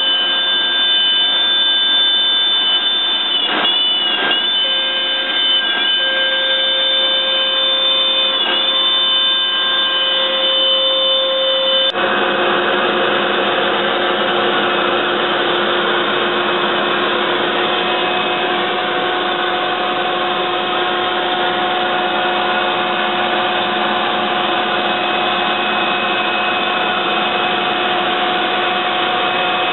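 Techno Isel CNC router's spindle whining steadily as it cuts MDF cabinet doors, its pitch dipping briefly a few times. About twelve seconds in, the sound changes abruptly to a different, denser steady machine noise.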